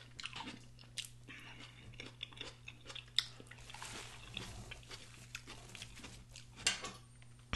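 Close-miked mukbang chewing of a mouthful of onion-wrapped burger: wet smacking and crunching with irregular mouth clicks, a couple of them sharper, over a faint steady low hum.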